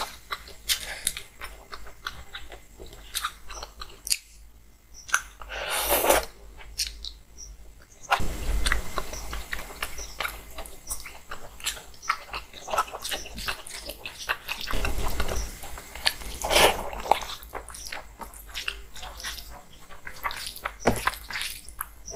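Close-miked eating: a person chewing mouthfuls of rice with hilsa fish curry, with many small wet mouth clicks throughout and a couple of longer smacking noises.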